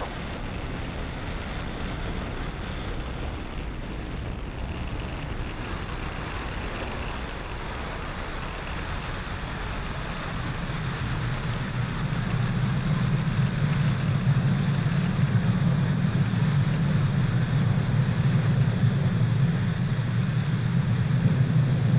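Falcon 9 first stage's nine Merlin 1D engines in flight: a steady rocket roar, with a low rumble growing louder about halfway through.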